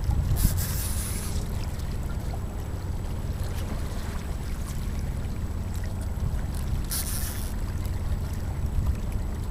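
Steady low rumble of wind on the microphone aboard a small boat on open water, with two short hissing bursts, one about half a second in and one about seven seconds in.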